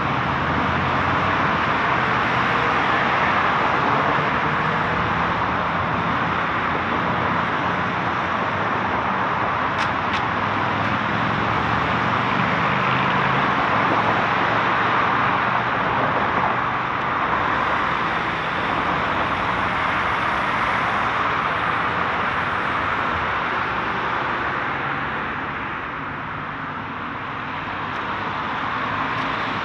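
Continuous road traffic: a steady rush of passing cars and tyre noise with low engine hum underneath, easing slightly and swelling again near the end.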